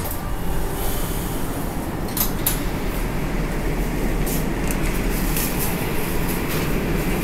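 Interior noise of a Moscow Metro 81-765 'Moskva' car: a steady rumble with scattered short clicks, the doors standing open at a station.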